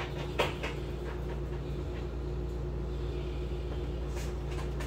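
Steady low background hum, with a stack of chrome trading cards being leafed through by hand: one sharp click of a card about half a second in and a faint card scrape near the end.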